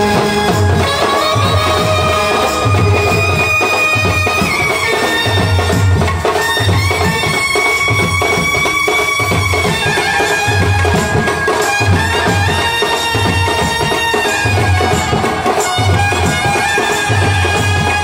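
Brass band playing: horns hold long melody notes that step from pitch to pitch, over a bass drum beating about once a second.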